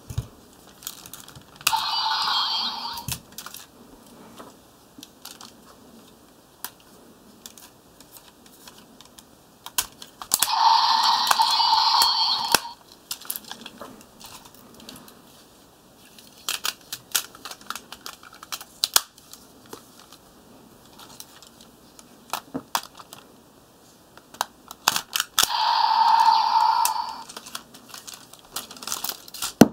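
Hard plastic parts of a Bandai DX Deka Wing Robo transforming robot toy clicking, clacking and snapping as it is handled and folded apart. Three louder stretches of about two seconds each stand out, near the start, in the middle and near the end.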